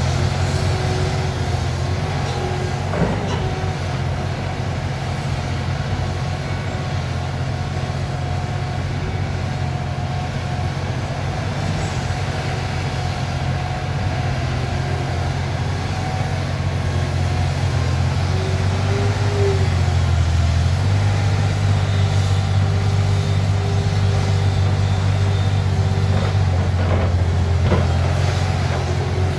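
Liebherr 964 hydraulic excavator working, its diesel engine running under load with a steady hydraulic whine as it digs and swings. The engine note dips briefly about two-thirds of the way through, then pulls harder. There are a couple of short knocks, one near the start and one near the end.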